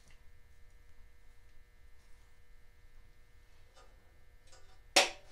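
Faint steady electrical hum, with one sharp knock about five seconds in.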